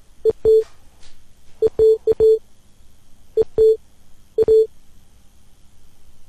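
Short electronic beeps, all at the same pitch, each opening with a sharp click. There are about ten, coming in quick groups: two, then four, then two, then two.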